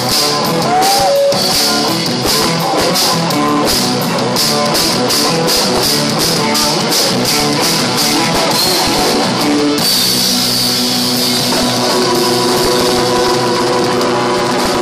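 Rock music with a drum kit and guitar, the drums striking densely. About ten seconds in the hits thin out and held chords ring on.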